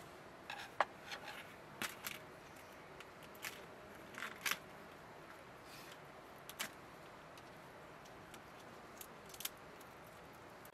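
Quiet, scattered clicks and brief rustles of hands tearing flatbread and picking pieces of cooked fish off a wooden platter, coming at uneven intervals.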